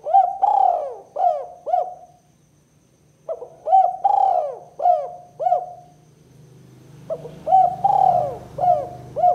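Spotted dove (tekukur) cooing in the 'kuk 2' style. Three phrases of about five quick coos each are separated by short pauses.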